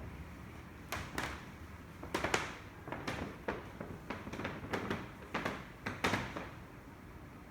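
A series of irregular, short knocks and clicks, more than a dozen over about five seconds, starting about a second in and stopping shortly before the end.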